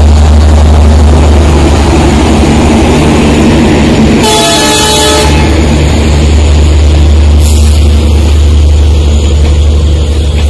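Passenger train running past at close range with a loud, steady low rumble. About four seconds in, a train horn sounds for about a second.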